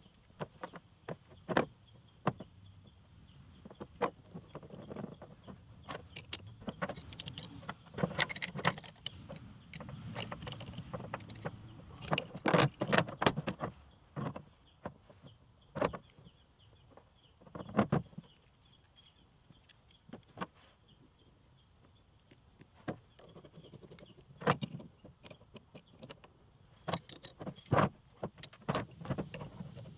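Metal hydraulic hose fittings and an adjustable wrench clinking and knocking on a ribbed truck tailgate liner, in irregular taps and clicks with a couple of busier clusters, as the hose adapters are unscrewed, taped and tightened back on.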